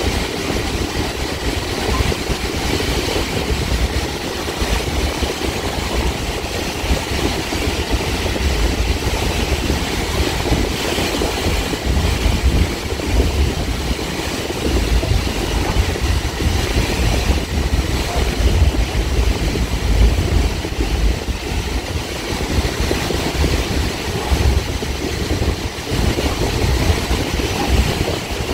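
A Caltrain gallery train running at speed, heard from inside its leading cab car: a steady, low rumble of the running gear and wheels on the rails.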